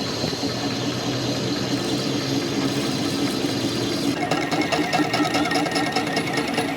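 A machine running steadily with a fast, even rhythmic clatter; its sound changes about four seconds in, turning brighter and more rapidly pulsing.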